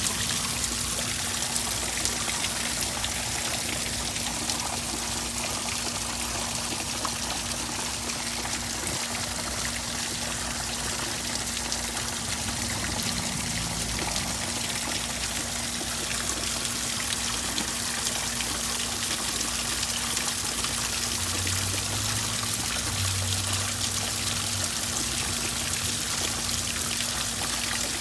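Water splashing and trickling steadily into a garden koi pond from a small rock waterfall and a pot spout, with rain falling on the surface. A faint steady low hum runs underneath.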